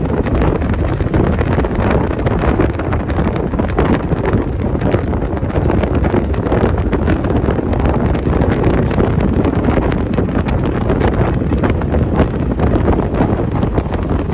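Strong wind buffeting the microphone, a loud continuous rumble with crackling gusts.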